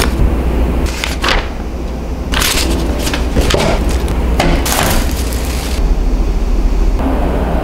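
Plastic wrapping crinkling and rustling in a string of short bursts as it is handled and pulled off, over a steady low hum.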